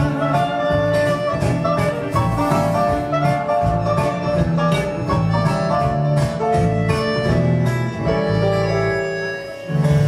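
Live band playing an instrumental passage with no singing: clarinet, bayan (button accordion), guitar, bass and drums keeping a steady beat. Near the end the band briefly drops back, then comes in with a loud accent.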